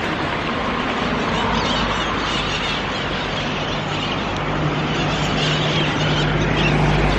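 A motor vehicle running, with steady road and engine noise; a low, steady engine hum grows louder about halfway through.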